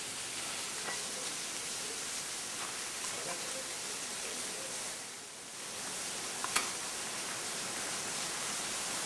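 Steady rushing hiss, with a few faint clicks and one sharp click about six and a half seconds in: the picks of ice axes and the points of crampons catching and scraping on rock during dry-tool climbing.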